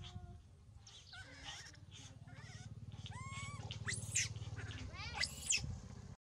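Baby monkey crying with a series of high-pitched squeals that sweep sharply up and down, loudest about four and five and a half seconds in, over a low buzzing hum. The sound cuts off suddenly near the end.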